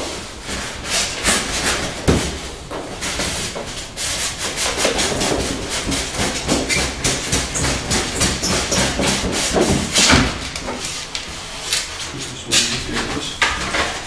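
Cardboard box and its packing rubbing and scraping as they are handled and pulled apart, with many short clicks and a couple of heavier knocks, about two seconds in and near ten seconds.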